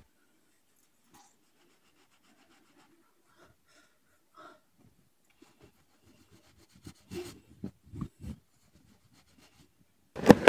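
Terry-cloth towel rubbing and squeezing wet hair: soft, intermittent rustling, with a few louder rubs and muffled knocks about seven to eight seconds in.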